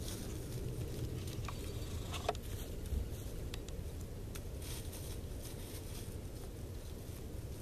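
Chickens scratching and pecking in dry fallen leaves: faint scattered rustles and ticks over a steady low rumble of wind on the microphone.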